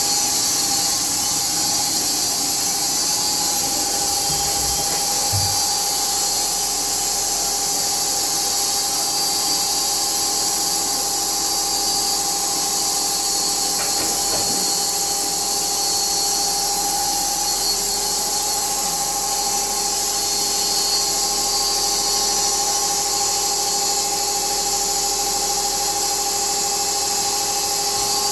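Automatic sawmill running steadily: a loud, even hiss over a steady high whine.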